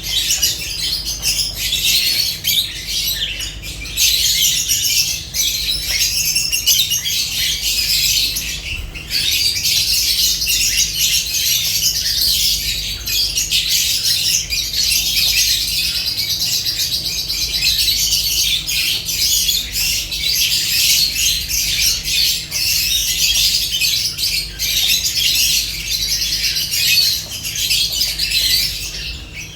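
Several lovebirds chattering continuously, a dense high-pitched twittering of overlapping calls, with a brief lull about nine seconds in.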